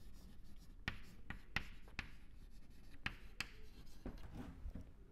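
Chalk on a chalkboard as words are handwritten: a string of irregular short taps, a few each second, with faint scratching between them.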